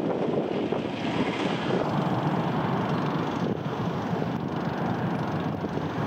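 Steady rumbling roar of a wooden roller coaster train running along its track.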